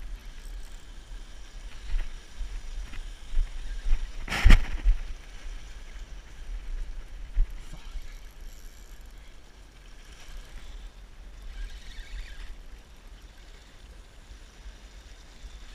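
Sea water washing and lapping against a rock wall, with wind rumbling on the microphone. A sharp knock about four and a half seconds in.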